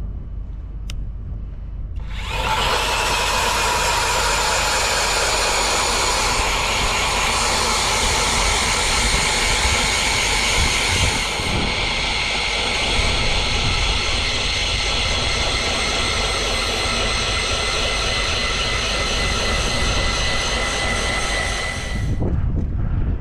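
Eskimo E40 electric ice auger running steadily for about twenty seconds as it drills a hole through the ice, a motor whine that starts about two seconds in and cuts off near the end. Wind rumbles on the microphone throughout.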